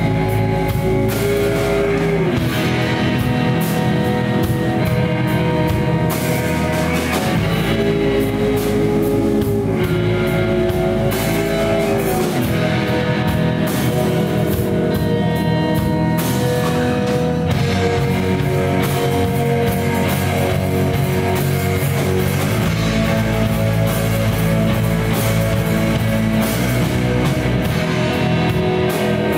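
Live rock band playing: electric guitars over bass and a drum kit, with sustained guitar notes and a melody line that bends up and down in pitch.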